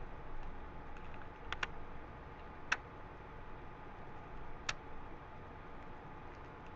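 Kitchen knife cutting Swiss chard: a few sparse, sharp taps of the blade against the cutting surface, a quick pair about a second and a half in, then single taps near three and five seconds, with fainter ones between.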